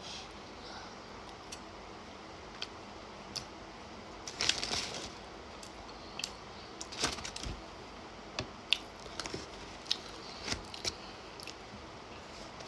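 Close-up eating sounds of chicken wings: scattered wet mouth clicks and smacks while chewing, with a few short louder bursts of chewing noise.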